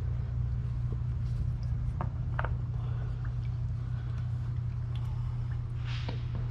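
A steady low hum, with a few faint clicks about two seconds in.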